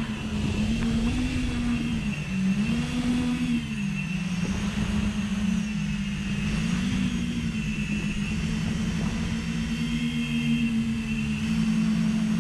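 X-class FPV quadcopter on 6S, its brushless motors spinning 13-inch props with a steady whine that rises and falls in pitch again and again as the throttle changes, over a low rumble.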